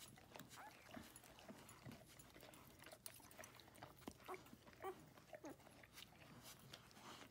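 Faint, short squeaks and whimpers of a newborn Golden Retriever puppy, several separate little cries, each rising in pitch.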